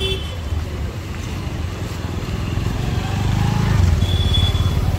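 Busy street traffic: motorcycle and car engines running past, growing louder from about three seconds in as a vehicle passes close.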